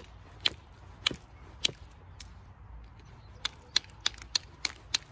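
Sharp clicks of a copper-tipped knapping tool working the edge of a piece of creek flint. There are a few clicks about half a second apart, a short pause, then a quicker run of about three clicks a second.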